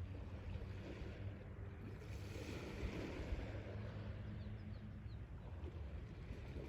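Sea waves washing on the shore, a steady wash of surf that swells for a couple of seconds about two seconds in, over a low rumble.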